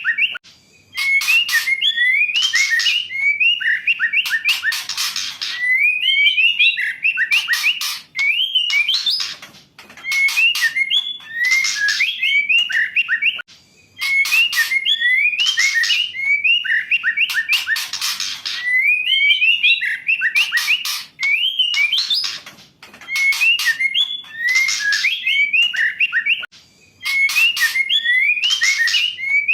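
Female white-rumped shama calling in repeated phrases of quick whistled notes mixed with sharp clicks and rattles, a new burst every few seconds after a short pause. This is the female call played as a lure to prompt a male shama to sing.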